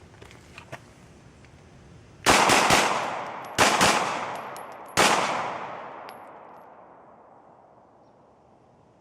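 Six 9 mm shots from a Glock 19X pistol, fired in a 3-2-1 pattern: three quick shots, a short pause, two shots, then a single shot. The reports trail off for a few seconds after the last one.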